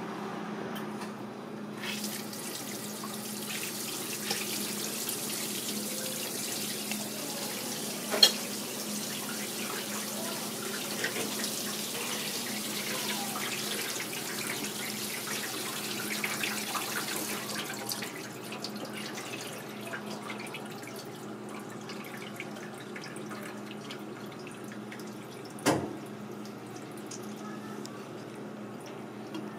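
Kitchen sink tap running, its water splashing onto a cuttlefish on a plastic cutting board as it is rinsed. The tap comes on about two seconds in and stops after about fifteen seconds. A steady low hum runs underneath, and there are two sharp knocks, one about eight seconds in and a louder one near the end.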